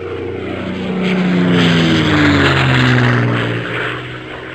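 A propeller airplane fly-by sound effect: an engine drone swells as it approaches, then drops steadily in pitch as it passes and fades away near the end.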